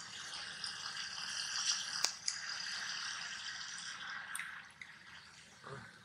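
Steady high-pitched outdoor hiss with a few scattered sharp clicks, the plainest about two seconds in.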